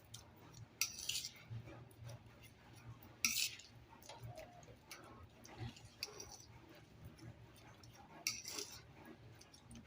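Metal fork mashing ripe bananas in a bowl: faint, scattered clinks and scrapes of the fork against the bowl, with three louder scrapes about a second in, after three seconds, and near the end.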